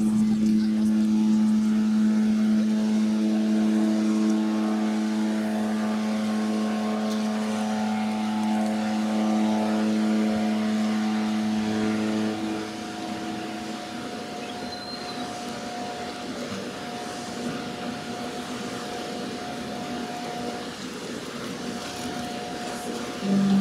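Steady machinery drone from the cruise ship AIDAdiva, a low hum made of several steady tones; about halfway through it drops to a quieter hum.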